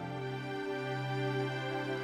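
String ensemble of violins, violas, cellos and double bass playing a slow, sad sustained chord, with a new chord coming in at the start and a slight change in the low notes about half a second in.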